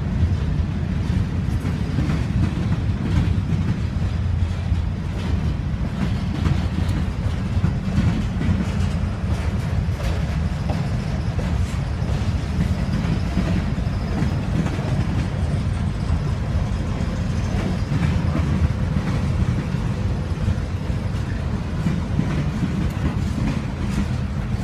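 Freight cars of a slow mixed freight train rolling past: a steady low rumble of steel wheels on the rails, with faint clicks scattered through it.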